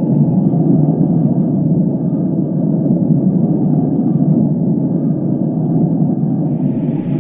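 Steady, loud low rumbling roar of a tornado's wind, a sound effect for a simulated tornado; a higher rushing hiss joins near the end.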